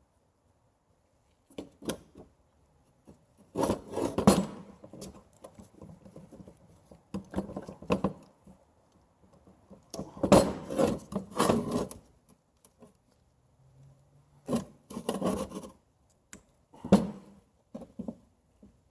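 Metal brake parts being handled and fitted by hand: irregular bouts of scraping and rubbing with clinks and knocks, in several short bursts.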